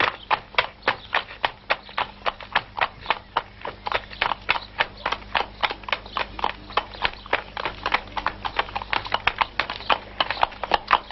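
Horses' hooves clip-clopping on cobblestones at a walk, a quick, even run of strikes at about five a second.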